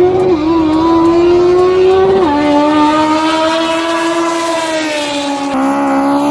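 Car engine running at high revs, its note held with slow drifts in pitch and dropping sharply twice, about two seconds in and again near the end.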